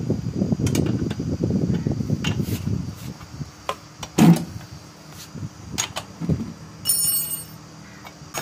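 Metal hand tools working on a motorcycle's rear disc brake caliper. A rapid rattling runs for about the first three seconds, then come a few separate knocks, the loudest about four seconds in, and a short metallic ring near the seven-second mark.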